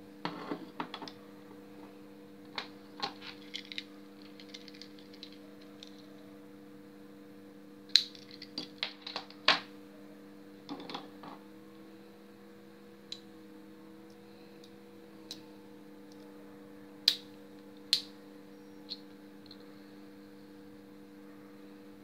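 Sharp metallic clicks and clacks of metal novelty lighters being handled and set down on a tabletop, in irregular clusters and single clicks with gaps between, over a steady low hum.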